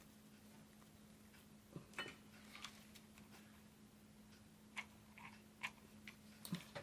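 Near silence with a faint steady hum and a few scattered soft clicks and ticks from hands handling ribbon and gluing supplies.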